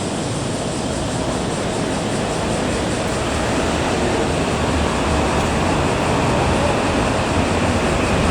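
Train running past on the rails: a steady rumble and rush of wheel and running noise that grows slightly louder, with a faint steady tone at times.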